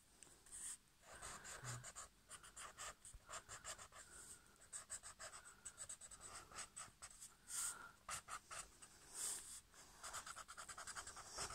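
Felt-tip marker pen scratching across paper in rapid hatching and scribbling strokes, several a second, faint.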